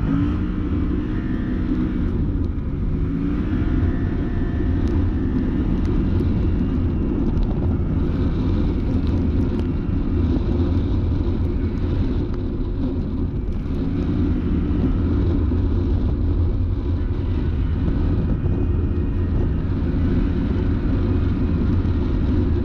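Can-Am Maverick Sport X MR side-by-side's engine running steadily while driving, its pitch rising and falling as the throttle changes.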